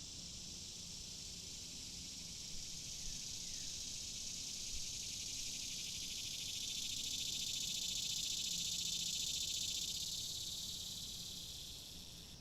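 Cicadas buzzing: a high-pitched, rapidly pulsing drone that swells to its loudest past the middle and fades toward the end.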